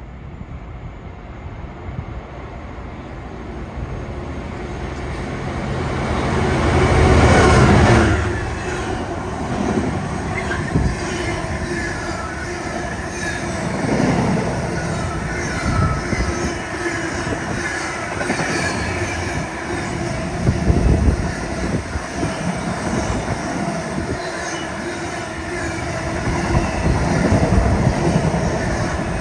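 Freight train running through the station at speed. The front of the train passes loudest about seven seconds in, followed by a long rake of empty container flat wagons, their wheels clattering over the rail joints in a steady run of clicks.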